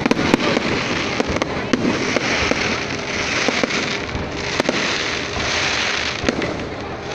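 Fireworks display going off continuously: a dense crackle with many sharp bangs at irregular intervals.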